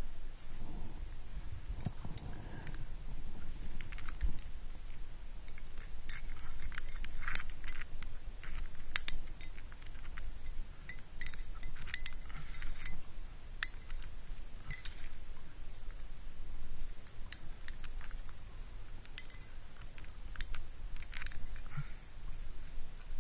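Metal climbing gear (carabiners and protection racked on a harness) clinking and jangling in irregular bursts of sharp clinks as a climber moves up a crack. The clinks come thickest from about six seconds in, ease off briefly, and pick up again near the end, over a low steady rumble.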